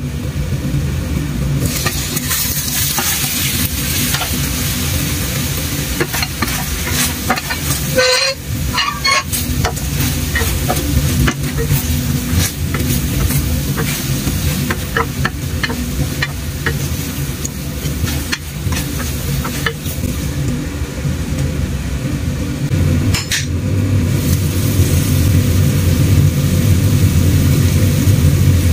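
Chicken and kimchi sizzling in a stainless steel pan while a wooden spatula stirs them, with scattered knocks and scrapes of the spatula against the pan, over a steady low hum.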